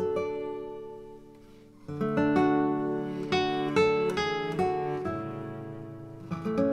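Background music on acoustic guitar: a chord that rings out and fades, then, about two seconds in, fresh strummed chords and picked notes.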